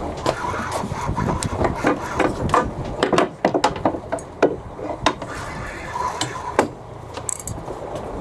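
Irregular knocks, clacks and rubbing of hard objects being handled on a fishing boat, over a low rumble.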